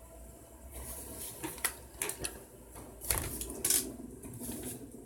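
Tools being handled on a workbench: a string of irregular knocks and clicks as a cordless drill and other tools are set down and moved about on the work mat.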